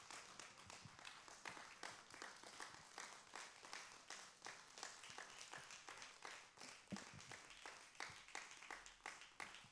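A congregation applauding: many hands clapping, faint and even.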